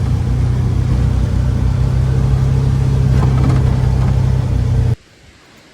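Steady drone of a vehicle's engine and road noise heard while driving. It cuts off abruptly near the end to a faint hiss.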